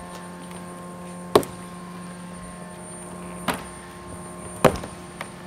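Three sharp snaps or knocks and a smaller one, spread over a few seconds, as a large cardboard shipping crate is worked open at its lid, over a steady electrical hum.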